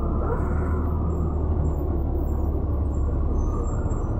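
Mercedes-Benz O405 city bus under way, heard from inside the passenger cabin: a steady low engine drone with road rumble.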